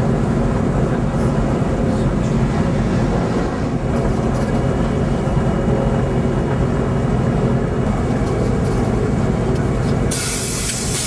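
Aircraft piston engines droning steadily at a constant level. About ten seconds in, a burst of high hiss breaks in over the drone.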